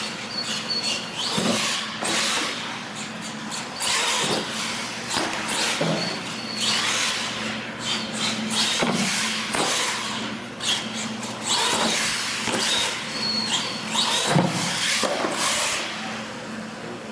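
Electric R/C monster trucks driving on a hard floor: motor and gear whine rises and falls with the throttle over tyre scrub, with several sharp knocks as the trucks land, hit things and tumble.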